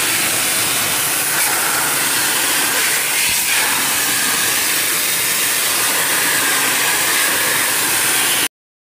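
Water jet spraying hard onto the aluminium fins of a ceiling-cassette air conditioner's evaporator coil, a loud steady hiss, as the moss-clogged coil is washed out. It cuts off suddenly near the end.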